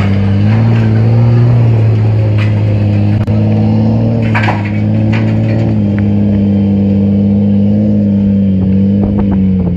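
Diesel truck engine running at a steady, held speed: a loud, even drone whose pitch rises and dips only slightly, with a few short clicks over it.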